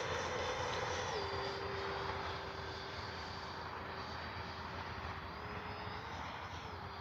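E-flite F-16 70 mm electric ducted fan RC jet in flight: a steady fan whine that drops in pitch about a second in and then holds, fading slightly.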